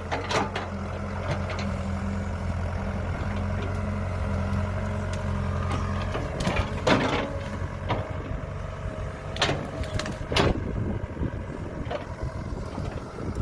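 Kobelco 07 excavator's diesel engine running steadily under load for about the first six seconds, then less prominent, with several sharp knocks in the second half as the machine digs.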